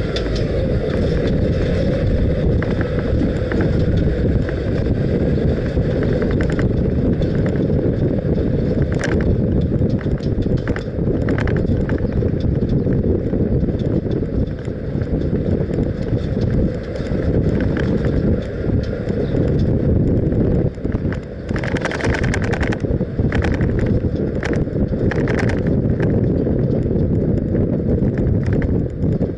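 Wind rumbling on the microphone of an action camera mounted outside a moving vehicle, mixed with road noise, with scattered short clicks and rattles.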